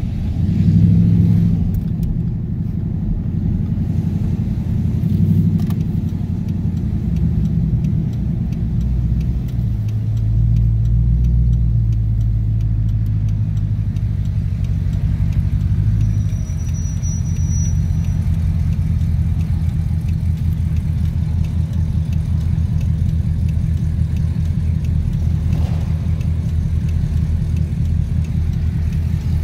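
Low engine rumble of cars rolling slowly in traffic, heard from inside a following car's cabin. It is uneven in the first half, then settles into an even, pulsing rumble.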